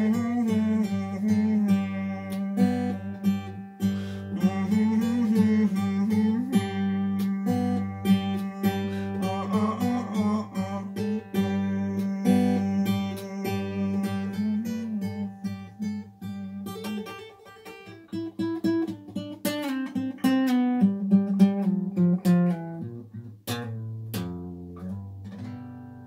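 Acoustic guitar played solo, picked and strummed notes over a held low bass note. Near the end the playing thins to a few last notes that ring out and fade away.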